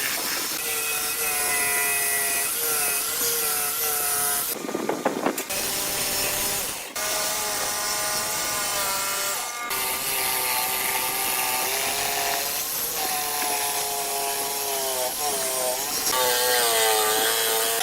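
Electric power tool working wood, its motor whine dipping in pitch and recovering as it takes the cut, with a short rough burst of cutting noise about five seconds in.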